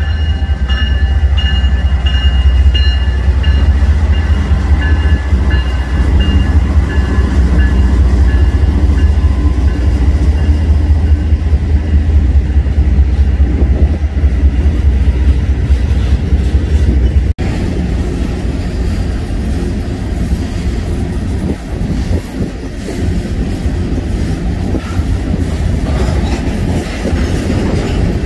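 Norfolk Southern diesel locomotives passing close with a heavy, steady low engine rumble, while the tail of a horn blast fades over the first few seconds. After a cut about 17 seconds in, freight cars roll past with wheels clicking over the rail joints.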